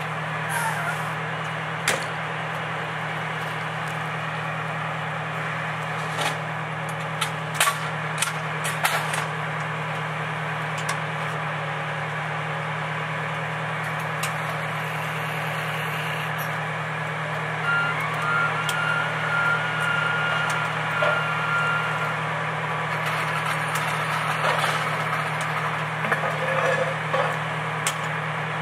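Fire truck's diesel engine idling with a steady low hum, with scattered sharp clicks and knocks of equipment and compartment parts being handled. Midway a short steady high-pitched tone sounds in broken pulses for a few seconds.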